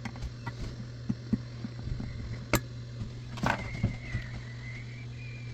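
Hot-air gun running with a steady low hum, with light taps and clicks of a small screwdriver on the aluminum heat sink and one sharp click about two and a half seconds in. A thin wavering whine comes in about halfway through.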